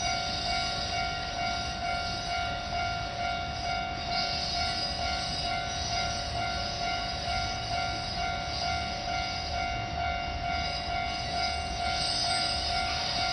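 Railway level crossing warning bell ringing steadily as one unbroken pitched tone, over a low rumble from the railway.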